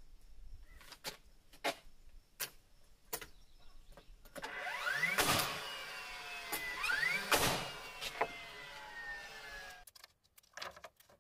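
Cordless battery nail gun firing twice into a white pine sidewall board, about two seconds apart: each shot is preceded by a rising motor whine and ends in a sharp bang, with the motor winding down after. A few light taps come before the first shot.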